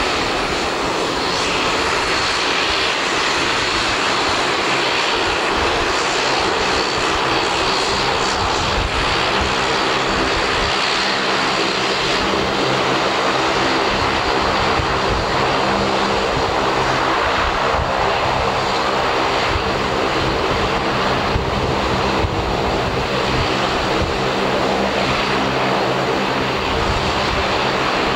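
Bombardier DHC8-Q400's two Pratt & Whitney PW150A turboprop engines running at taxi power as the aircraft taxis. A steady propeller drone with a layered hum under a rushing whine.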